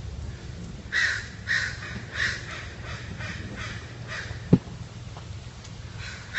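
A crow cawing several times in quick succession, the calls growing fainter, over a steady low hum. A single sharp thump about two-thirds of the way through is the loudest sound.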